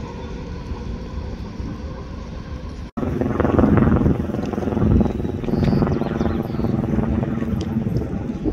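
An engine running with a steady pitched hum. About three seconds in, after a brief cut-out, it comes back louder with a fuller drone.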